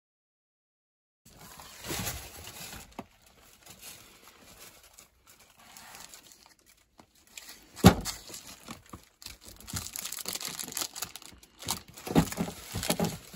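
A hand handling a stack of paper calendars and plastic-wrapped goods: irregular crinkling and rustling that starts about a second in, with one sharp knock a little past halfway and denser crackling near the end.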